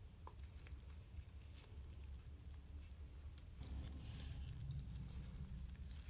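Faint handling sounds of nitrile-gloved fingers working silicone grease onto the threads of a brass shower valve stem: soft rubbing and scattered small clicks, a little louder about halfway through, over a low steady hum.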